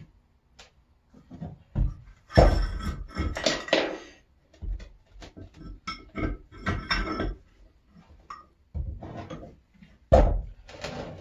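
Heavy steel vise parts clanking, scraping and ringing as they are handled and fitted together, a spring being worked into the screw assembly. Irregular knocks come in clusters, loudest a couple of seconds in and again about halfway, with another hard clank near the end.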